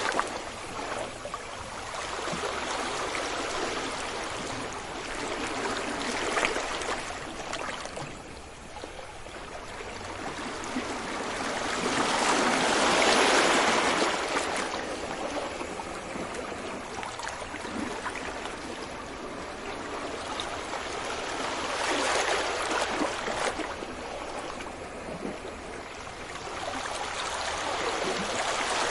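Sea waves washing onto a beach: a continuous hiss of surf that swells and recedes slowly, with the biggest wave near the middle and further swells later on.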